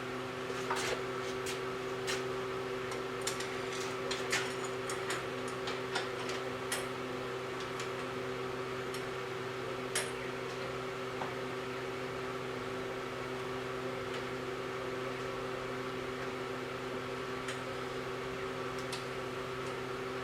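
Cylindrical grinder's electric workhead motor running with a steady hum. Scattered sharp clicks and taps fall in the first half, the last about ten seconds in.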